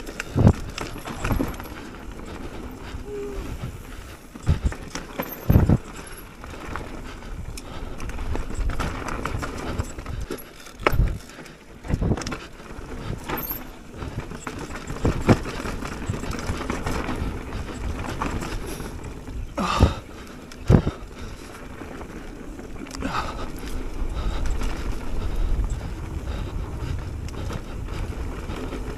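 Mountain bike ridden fast down a dirt singletrack: a continuous rolling rush of knobby tyres on dirt and leaf litter, with the bike clattering and sharp knocks every few seconds as it hits roots and bumps.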